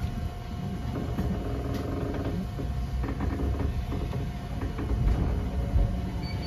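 Eizan Electric Railway railcar running on snow-covered track, heard from just behind the driver's cab: a low rumble of wheels on rail with a steady hum and scattered light clicks.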